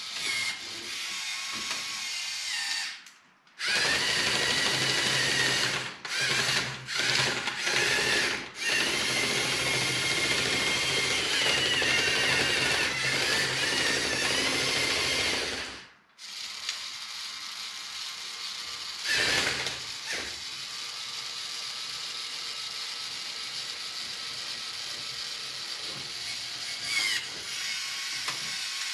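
Electric motors and plastic gear trains of a LEGO Technic tracked RC straddle carrier whirring with a whine as it drives and works. The whir stops briefly several times, is louder for the first half and runs quieter and steadier after about 16 seconds.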